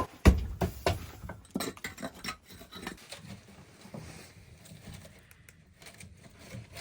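A run of short knocks and thumps, the loudest about a third of a second in, thinning out after about two seconds.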